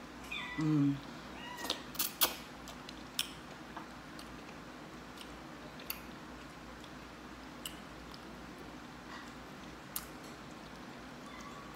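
A domestic cat gives one short meow about half a second in. Scattered sharp clicks and smacks of eating noodles with wooden chopsticks follow, the loudest about two seconds in.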